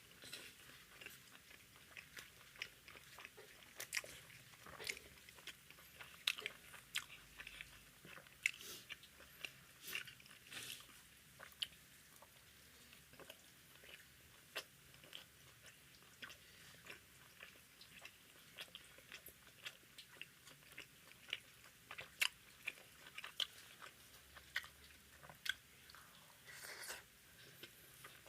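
Close-miked mouth sounds of a person eating tandoori roti and naan with masala egg curry: irregular chewing and biting, with short, sharp wet clicks and smacks a few times a second.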